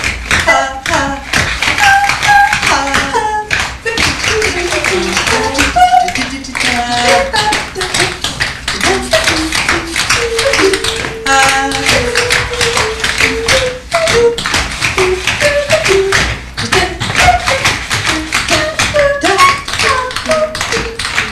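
Tap shoes striking a wooden stage floor: many dancers tapping dense, rapid rhythms. A melody of short pitched notes runs over the taps.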